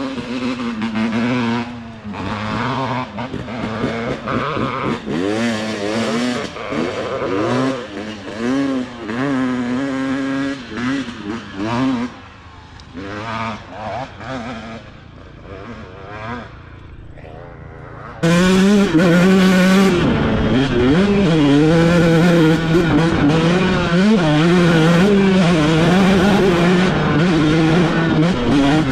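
Dirt bike engines revving in rising and falling glides as the bikes ride away up a hill, growing fainter and patchier. About eighteen seconds in it cuts abruptly to one dirt bike's engine heard close up from on board, running loud with repeated throttle changes.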